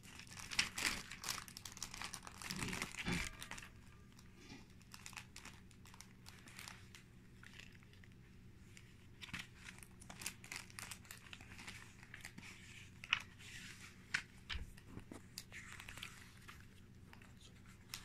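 Paper pages of a LEGO instruction booklet being turned and handled, rustling in irregular bursts that are busiest in the first few seconds, with scattered lighter rustles and a couple of sharp ticks later on.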